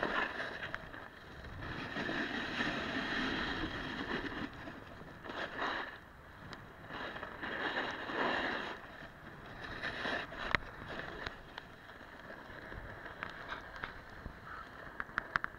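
Snowboard edges scraping and carving across packed snow, the hiss swelling and fading with each turn. A few sharp clicks near the end.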